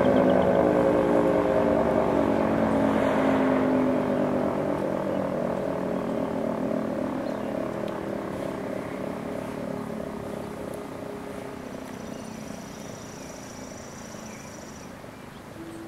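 Federal Signal 3T22B single-phase three-tone siren winding down at the end of its alert test: its chord of tones slides steadily lower in pitch and fades.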